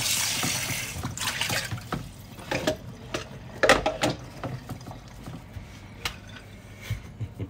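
Hands pressing and patting sticky keto pizza dough flat in a metal baking tray: soft squishing with scattered taps and clicks, a cluster of them a little past halfway.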